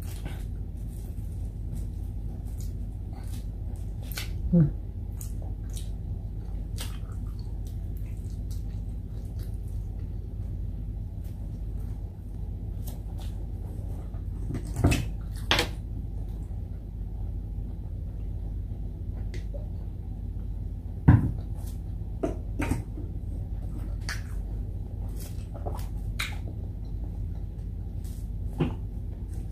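Eating by hand from a table covered in a plastic sheet: scattered small clicks and crinkles of fingers handling food and plastic, with a few louder short sounds, over a steady low hum.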